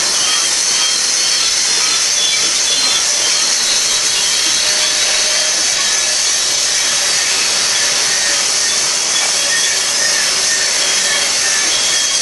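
Freight cars of a BNSF manifest train rolling by: a steady, harsh grinding hiss of steel wheels on rail, with short high squeals flickering in and out.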